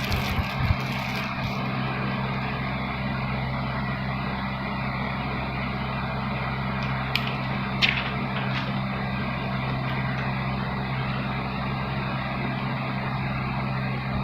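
A steady mechanical hum with an even background rush throughout, broken by a few short sharp clicks near the start and again about seven to eight seconds in.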